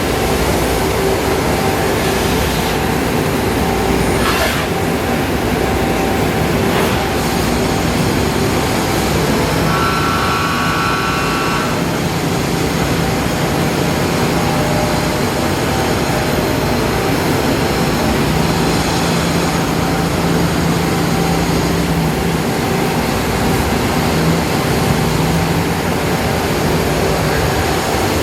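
Nakamura-Tome NTY3-100 three-turret CNC lathe running: a steady machine drone with a constant hum of motors and pumps. A short, higher whine comes in for about two seconds near the middle.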